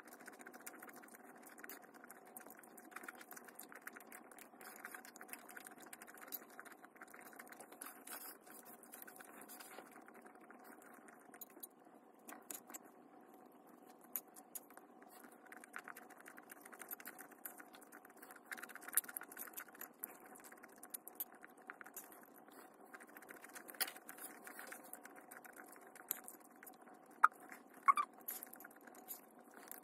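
Quiet eating sounds: a spoon scraping and clicking against a plate of food, with many small soft clicks over a faint steady hum. Two sharper, ringing clinks of the spoon on the plate near the end.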